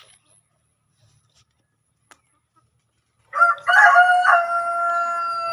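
A rooster crows once, about three seconds in: a cock-a-doodle-doo with a couple of quick breaks, ending in a long held note.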